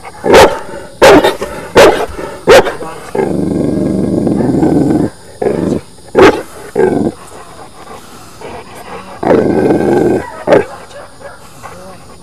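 Cane Corso barking at a decoy holding a bite sleeve: about seven deep, loud single barks, four of them in quick succession at the start and the rest spread out, with two long low growls of a second or two between them.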